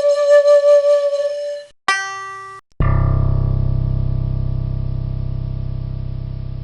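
A run of separate instrument samples: a held, clear pitched note with a slight waver at its start, then a brief bright note, then a deep low-pitched struck sound that rings on with a fast throb and fades slowly.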